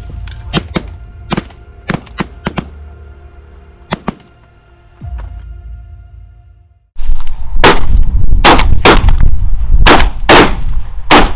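Background music, then a short silence. From about 7 s, a rapid volley of about six shotgun shots from goose hunters in a little over three seconds, over wind rumble on the microphone.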